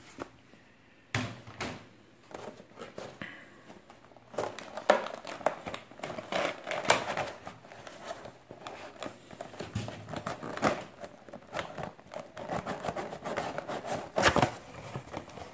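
Cardboard and clear plastic packaging being handled as a model locomotive box is opened: sliding, rustling and crinkling with irregular small clicks and scrapes, sparse at first and busier from about four seconds in.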